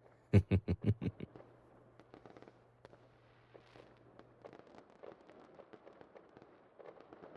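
Fireworks going off: a quick string of about eight sharp bangs in the first second or so, then faint scattered crackling.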